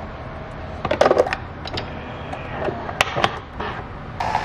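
Nespresso capsule coffee machine being loaded and started: a few clicks and knocks of the lid and capsule, a sharp click about three seconds in, then near the end the machine starts brewing with a steady whirring hum.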